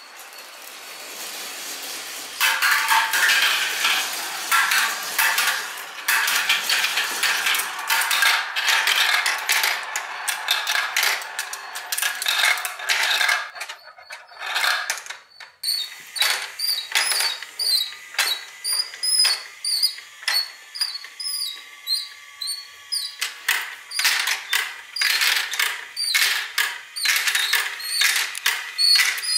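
Marbles rolling along plastic track in a continuous, dense clicking rattle. About fourteen seconds in, the sound changes to a motorised plastic chain lift clicking steadily, two or three clicks a second, with repeated high-pitched squeaks.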